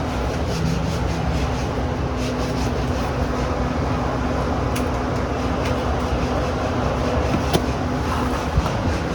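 Steady mechanical running noise, like a ventilation fan or air-conditioning unit, with a constant low hum and a few faint clicks or knocks.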